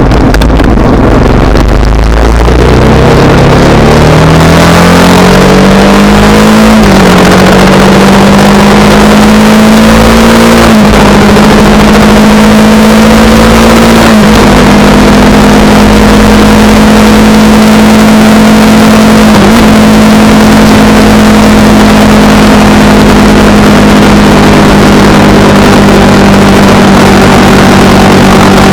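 Honda Rebel 300 single-cylinder engine pulling away and accelerating through the gears. The pitch climbs and drops back at four upshifts, then holds steady at cruising speed, over a steady rush of wind.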